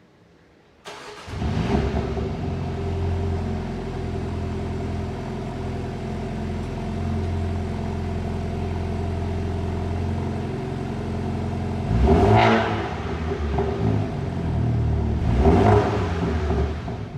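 2020 BMW M135i's turbocharged four-cylinder starting in Sport mode about a second in, flaring loud, then idling steadily. Two sharp throttle blips come later, with exhaust pops and crackles, and the engine is shut off just before the end.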